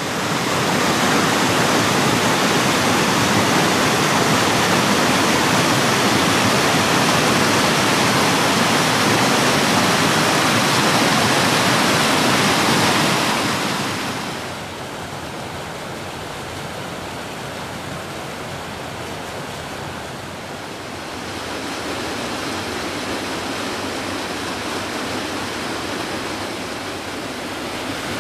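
Rushing water of river rapids, a steady loud wash of noise that gets noticeably quieter about halfway through and a little louder again later.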